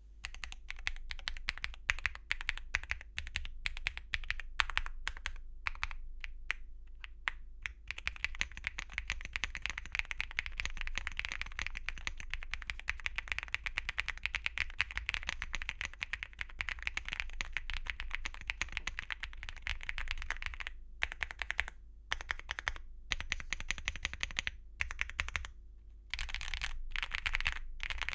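Typing on a MonsGeek M1 V5 mechanical keyboard with lubed Akko V5 Creamy Yellow Pro linear switches and Cherry-profile double-shot PBT keycaps. Keystrokes come as rapid, dense clicks through the middle, with sparser, separate strokes near the start and toward the end.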